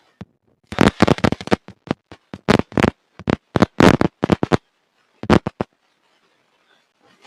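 Hard, gritty black mud being crumbled by hand: a quick run of sharp crunching cracks for about four seconds, then a few more a moment later.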